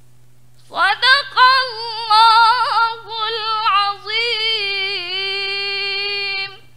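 A woman's solo voice chanting a Quran recitation in the measured murattal style. A wavering, ornamented phrase begins about a second in and ends on a long held note that breaks off just before the end.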